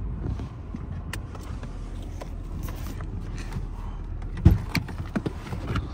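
Car engine idling, heard from inside the cabin as a steady low hum. About four and a half seconds in comes a loud thump, followed by a few lighter clicks and knocks, as the driver's door is opened.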